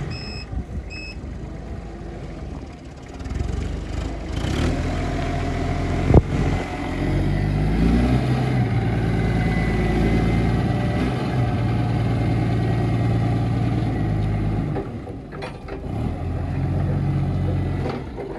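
A heavy vehicle's engine running, rising in pitch around seven seconds in and holding at higher revs for several seconds before easing off. A reversing alarm beeps twice in the first second, and there is a single sharp clank about six seconds in.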